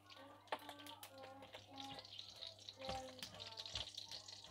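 Cumin seeds and dried red chillies beginning to sizzle faintly in hot oil in a non-stick wok, the hiss building, with a few knocks of a spatula stirring them about three seconds in. Soft music plays underneath.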